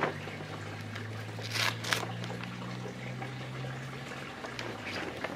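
Clear plastic bag and sailcloth rustling and crinkling as a new staysail is pulled out of its wrapping, with two short sharp rustles about a second and a half in. A steady low hum runs underneath.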